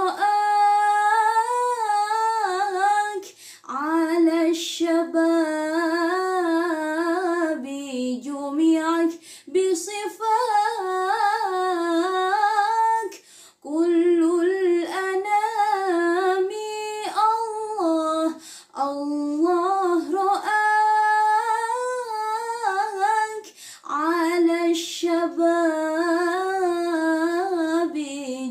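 A young woman singing sholawat, an Islamic devotional song in Arabic, solo and unaccompanied, in long held notes with wavering ornaments, phrase after phrase, with short pauses for breath.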